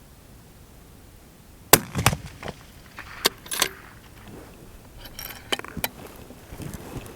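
A run of sharp clicks and knocks of equipment being handled: one loud click, then about five lighter ones spread over the next few seconds.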